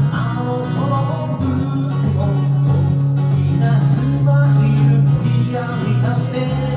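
Electric sanshin, the Okinawan three-string lute, playing a plucked melody over a steady low tone held underneath.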